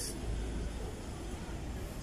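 Steady low background rumble with a light hiss and no distinct event.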